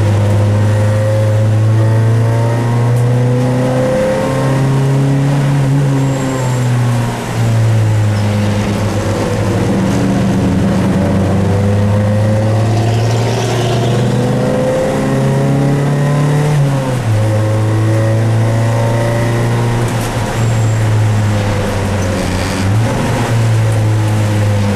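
Dodge Neon race car's four-cylinder engine, heard from inside the cabin, running at moderate revs. Its note rises and falls, with a few sudden drops in pitch at gear changes.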